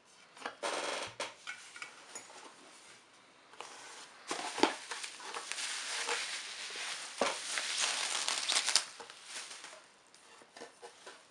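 Packaging being handled and unwrapped by hand: crinkling and rustling with a few sharp crackles. There is a short stretch near the start and a longer, louder one from about four to nine seconds in.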